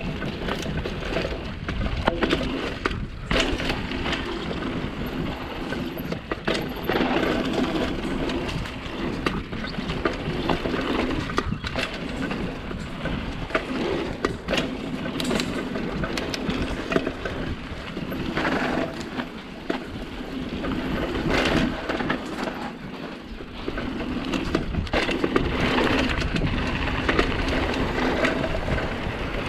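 Bicycle ridden over rough ground: tyres crunching and frequent rattling knocks from the bike, with wind buffeting the helmet or chest camera's microphone.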